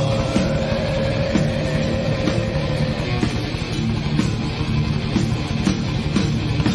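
Metal band playing an instrumental passage: electric guitar over drums, with a long held guitar note that fades out over the first few seconds.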